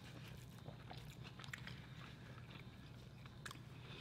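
Faint eating sounds: soft chewing with scattered small clicks and ticks as food is picked up and torn by hand.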